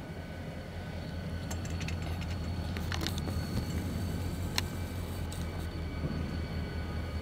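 Diesel locomotives running with a steady low rumble that grows gradually louder as they come closer. A few sharp clicks come about two and three seconds in, and a louder one halfway through.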